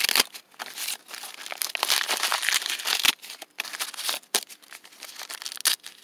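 Dry, papery husks of an ear of Glass Gem corn being pulled back and torn off by hand, crinkling and tearing in a string of rustling bursts with short pauses between them.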